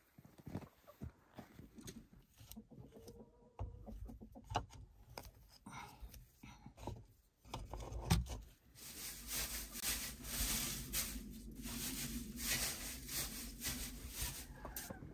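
Scattered light clicks and knocks, then, from about nine seconds in, a continuous crackly rustle of hands rummaging through dry hay in a nest box.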